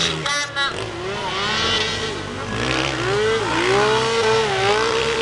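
Race-prepared Piaggio Ape three-wheeler's small engine revving hard under racing load, its pitch rising and falling several times and then climbing and holding high over the second half.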